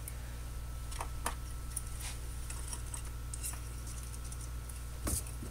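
A few faint clicks and taps from small wires and parts being handled on a workbench, over a steady low hum.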